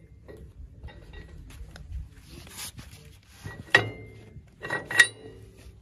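Metal clinks and knocks from a tractor's rear hitch and drawbar bracket being handled, with two sharp ringing clanks, the second about a second after the first, near the end.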